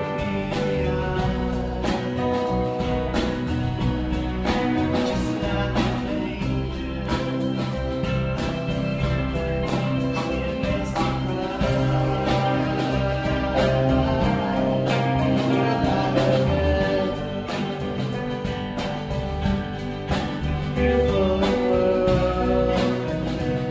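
Live song: a strummed guitar with a voice singing over it.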